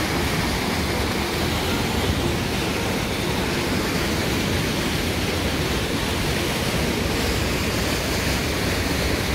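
Steady rush of water pouring from outlet pipes and a rock spout into a water-slide splash pool.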